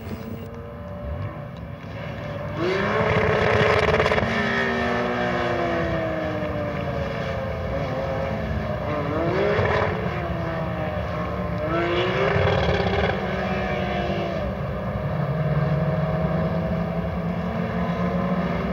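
Porsche 911 GT3 Cup race cars' flat-six engines driving past, the engine note rising sharply as they accelerate about three seconds in, again near the middle and once more around twelve seconds, and falling away in between.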